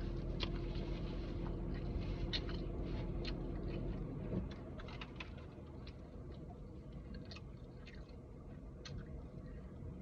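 Close-up chewing with wet mouth clicks as a person eats a foot-long coney dog, over a low steady hum in the car cabin that drops away about four seconds in.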